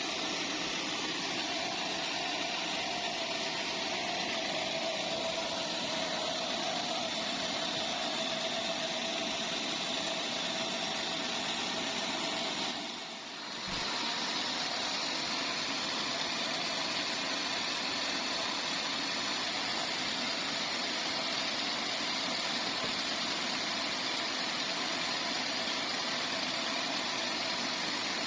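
A sawmill's bandsaw machinery runs with a continuous, steady mechanical noise. The noise dips briefly about halfway through.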